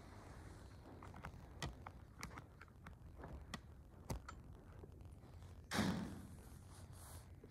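Faint, scattered taps and clicks of small objects being handled and set down in a quiet room, then one short, louder noisy sound about six seconds in.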